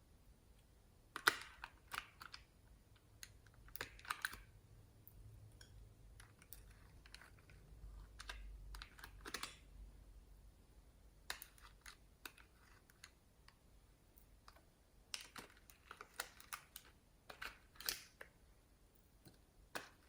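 Slime being squeezed and worked by hand, giving faint sticky clicks and small crackling pops in scattered clusters.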